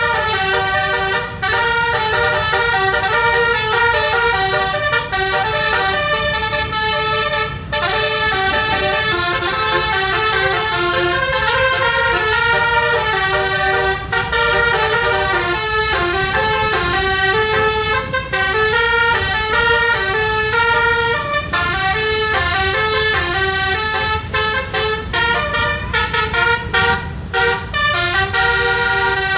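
Indonesian bus's 12-trumpet basuri telolet air horn playing a tune, several horn trumpets sounding together in quick stepped notes, over a steady low rumble. Near the end the notes come short and separated.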